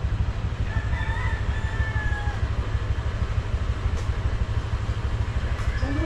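A rooster crows once, about a second in, over a steady low rumble.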